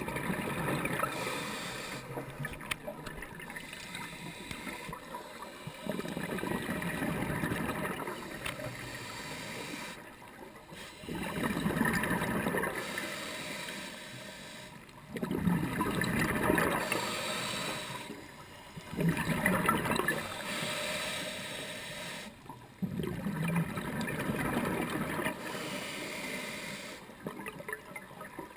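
Underwater sound of a scuba diver breathing through an open-circuit regulator: gurgling bursts of exhaled bubbles alternating with quieter inhale stretches, one breath cycle every few seconds.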